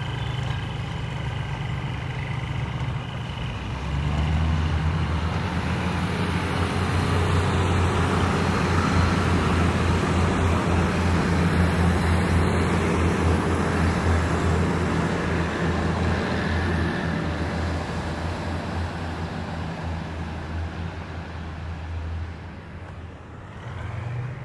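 Diesel locomotive engine running with a low drone as it draws a train of coaches through a rail yard. The drone grows louder about four seconds in, holds, then fades over the last few seconds.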